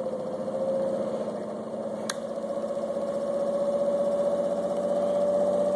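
Four-pole monopole energizer pulse motor running, its rotor turning a 400 W wind generator: a steady hum with a fast pulsing beat, its pitch slowly rising as it builds up speed. One sharp click about two seconds in.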